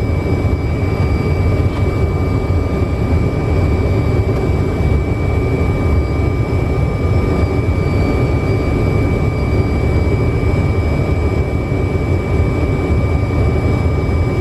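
Steady flight-deck noise of a Fokker 100 in flight: a dense rushing rumble of airflow and its Rolls-Royce Tay turbofan engines, with a steady high whine over it and no change throughout.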